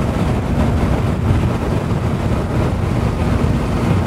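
Kawasaki Ninja ZX-14R's inline-four running steadily at expressway cruising speed through a Yoshimura slip-on exhaust, mixed with wind and road noise.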